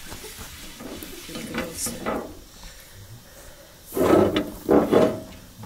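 Rubbing and scraping strokes of a cloth wiping a flat iron saj griddle over a grill, softer at first, with two louder strokes about four and five seconds in.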